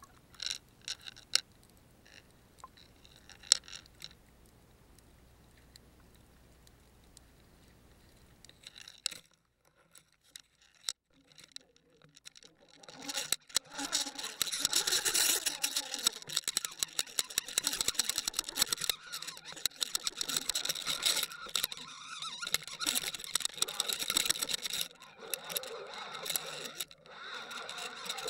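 A few faint clicks, then about thirteen seconds in a dense, rapid clicking and rattling sets in and keeps going. It comes from an underwater fishing camera on the line being jerked about as a hooked fish pulls on the rig.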